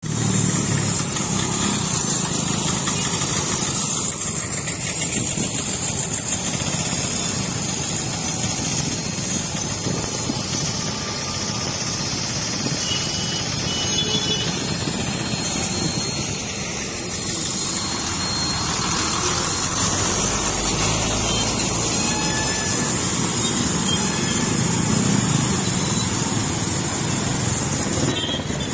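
Busy road traffic, mostly motorcycles and scooters with some cars, running past in a steady low rumble, with a steady high hiss over it and a few short high tones now and then.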